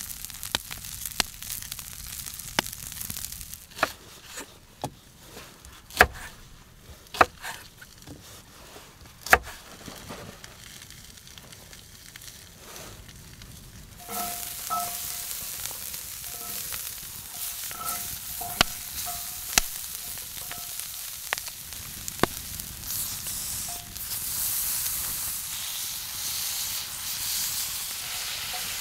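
Food frying in a cast-iron skillet over a wood campfire. Sharp crackling pops fill the first half, then a steady sizzle comes in suddenly about halfway and grows louder near the end.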